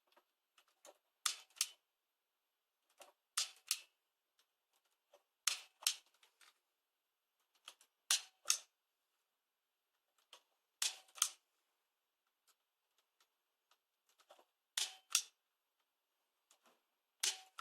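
Punch-down tool snapping as it seats the Cat5 cable's conductors into the module's terminal blocks: about seven sharp double clicks, one every two to three seconds.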